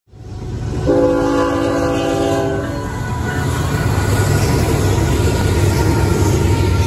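Sound-equipped model diesel locomotives passing: a multi-note horn blows for about two seconds, starting about a second in, over a steady engine rumble and the rolling noise of the train.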